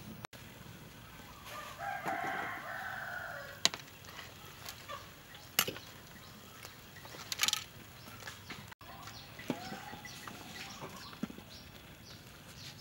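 A rooster crows, one drawn-out call of about two seconds starting about a second and a half in, followed later by a shorter call. A few sharp clicks fall in between.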